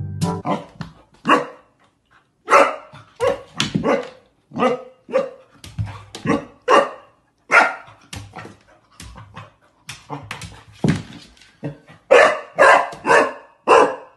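A puppy barking over and over in short, separate barks, with a quick run of barks near the end.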